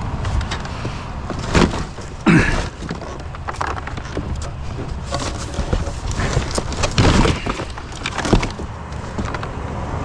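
Irregular knocks, scraping and cracking as a curbside pool pump is wrenched and pried apart from its filter housing, with a few louder creaking cracks in the first few seconds and again about two thirds of the way in.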